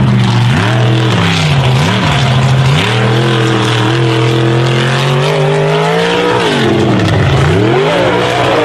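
Lifted 4x4 truck's engine revving hard in quick up-and-down blips, then held and climbing in pitch for about three seconds before dropping off, then revving up and down again.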